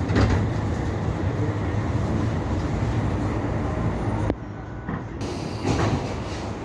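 Passenger train running on rails, heard from aboard: a steady rumble of wheels and carriage. About four seconds in it turns suddenly quieter and duller, and a brief louder swell follows near the end.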